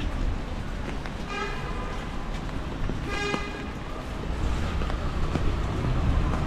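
Car horn honking twice, two short toots about a second and a half apart, over steady street noise of traffic and rain.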